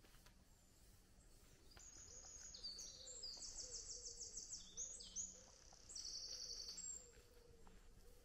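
A small songbird singing a long run of rapid, high-pitched trills that change pitch from phrase to phrase, starting about two seconds in and lasting about five seconds.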